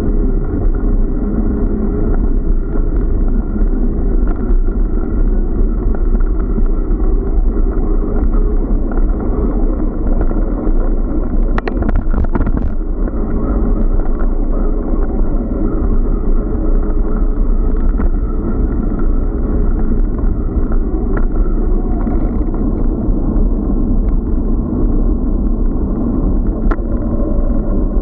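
Steady wind buffeting and tyre rumble on an action camera's microphone while cycling along a path, with a brief cluster of sharp knocks from bumps about twelve seconds in.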